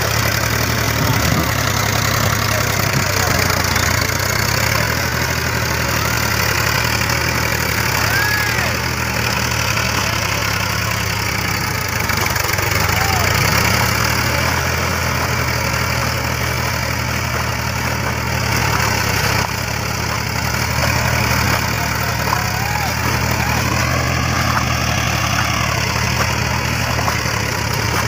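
Fiat 480 tractor's three-cylinder diesel engine running steadily under load, pulling a tillage implement through flooded paddy mud.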